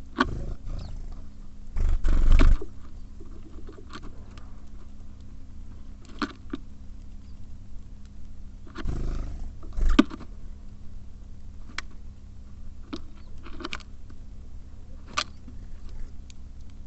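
Small birds (tits and sparrows) at a bird feeder: scattered sharp taps and knocks as they peck and land, with two louder rustling flurries, one about two seconds in and one about nine seconds in, over a steady low hum.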